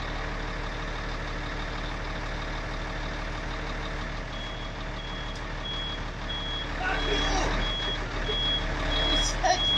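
Lorry engine running steadily to power its loader crane. From about four seconds in, a high warning beeper sounds about three times every two seconds. There is a short clank just before the end.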